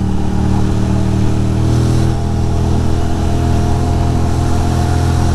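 2006 Ducati Monster 620's air-cooled L-twin engine running at a steady cruising speed, its pitch holding level.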